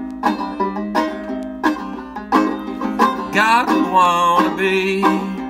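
Tenor banjo strummed in a steady rhythm of chords. About three seconds in, a held, wavering sung note comes in over it.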